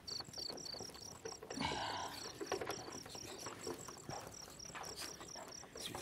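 Crickets chirping steadily at about four chirps a second, with soft scattered clicks and a brief rattle about two seconds in from a metal door lock being worked.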